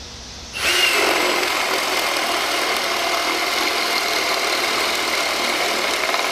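Brushless cordless drill driver boring a 1-inch spade bit into a 2x4. The motor starts about half a second in and runs steadily under load, with a steady whine over the noise of the bit cutting the wood.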